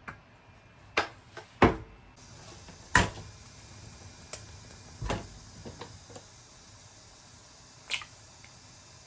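Kitchen knocks and clacks as food and utensils are handled and set down: about ten separate sharp hits, the loudest ones in the first three seconds, then sparser and fainter.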